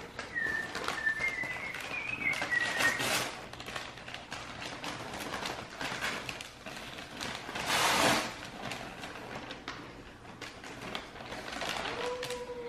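Christmas wrapping paper crinkling and tearing as a present is unwrapped, in a string of short rustles, with the loudest rip about eight seconds in.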